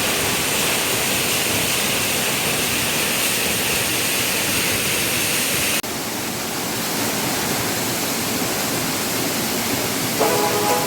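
Waterfall's steady rushing noise, loud and even, with an abrupt jump to a slightly different rush about six seconds in.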